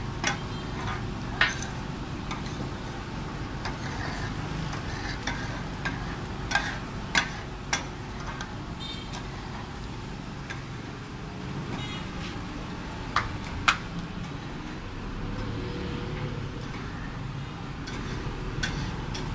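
Steady street and traffic noise, with sharp metallic clinks scattered through it, twice in quick pairs, typical of a steel spatula striking a tawa griddle.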